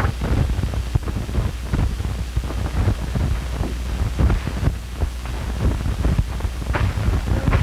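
Steady low hum and hiss of an old, worn film soundtrack, with irregular crackles and knocks running through it.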